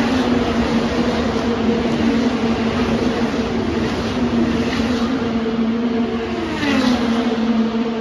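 IndyCar race cars with 2.2-litre twin-turbocharged V6 engines passing at speed on the front straight, with an engine drone throughout. The pitch falls as each car goes by, with passes about a second in, around five seconds in, and near the end, the last the loudest.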